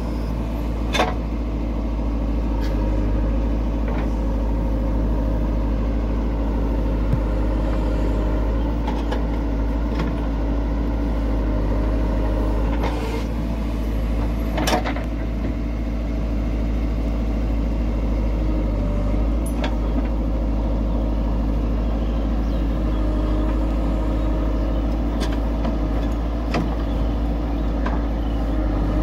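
JCB 3DX backhoe loader's diesel engine running steadily under load as the backhoe digs and swings, with a few sharp knocks from the bucket and soil.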